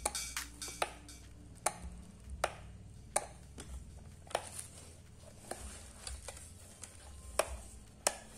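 Handling noise from a plastic-cased alarm clock being turned over in the hands: about ten light, irregular clicks and taps, with faint rustling between them.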